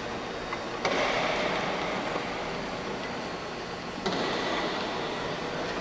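Lindbergh electric aircraft tow tractor's drive motor running as it moves an aircraft, with a sudden surge about a second in and again about four seconds in, each fading back.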